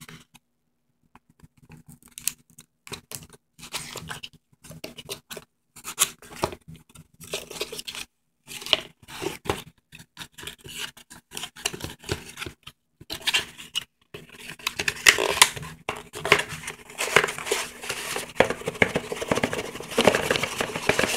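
A cardboard retail tablet box being opened and its packaging handled: the seal tearing, then cardboard and packing material scraping, rustling and clicking irregularly. The handling gets busier and louder in the second half.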